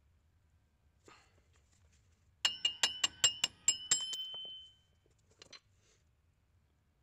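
A big hand hammer knocking a pressed-in rear wheel stud out of a 1996 Ford Bronco's hub. About two and a half seconds in comes a quick run of about nine sharp metal-on-metal strikes, each ringing with the same high note. The last one rings on for about half a second.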